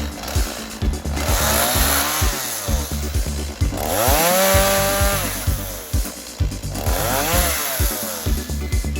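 Two-stroke chainsaw revving up and dropping back three times while trimming small branches, over background music with a steady beat.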